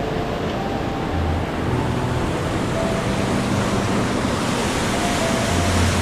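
Rushing white water of a rocky river cascade, a steady hiss that grows louder and brighter in the second half. Faint held musical notes sound underneath.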